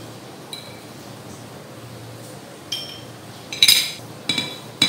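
A metal fork clinks and scrapes against a ceramic plate and the rim of a glass jar as sliced ginger pickle is pushed into the jar. There are several sharp, ringing clinks, mostly in the second half, and the loudest comes about three and a half seconds in.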